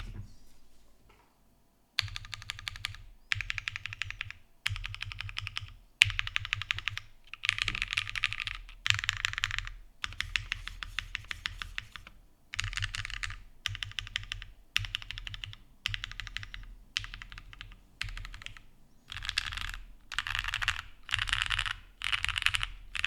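Typing test on a 7V by Gok custom 75% mechanical keyboard, built plateless: rapid keystrokes come in about a dozen bursts of roughly a second each, separated by short pauses.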